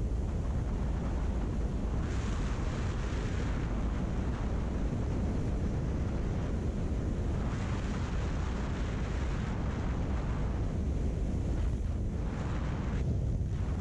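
Wind buffeting the microphone of a motorcycle-mounted camera at highway speed, about 105 km/h, over a steady low rumble from the bike and road. The wind hiss swells twice, about two seconds in and again around eight seconds.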